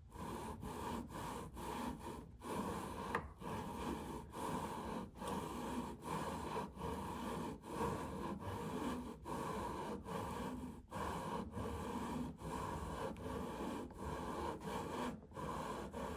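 Lapping tool coated with 220-grit lapping compound being rotated back and forth inside rifle scope rings: a gritty rubbing in short repeated strokes, about two a second, with a brief dip at each reversal. The abrasive is wearing paint and metal off the inside of the rings to bring them into alignment, and the tool is getting easier to work as material is removed.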